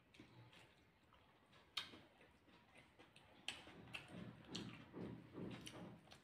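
Faint sounds of eating by hand: chewing and small mouth smacks, with fingers working food on a plate. Scattered sharp clicks, the sharpest a little under two seconds in, and the sounds grow busier in the second half.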